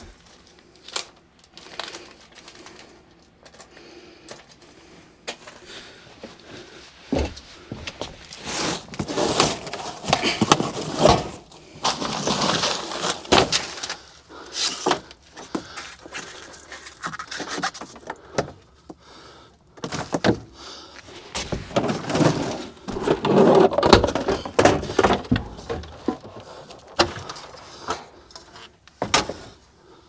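Objects being handled and moved about in a cramped attic: irregular knocks, clatters, scraping and rustling. The handling is busiest in two stretches, around ten seconds in and again just past twenty seconds.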